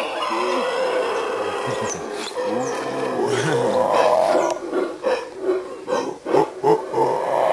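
Yucatán black howler monkey roaring: a long continuous howl that breaks into a run of short pulsed roars, about three a second, in the second half.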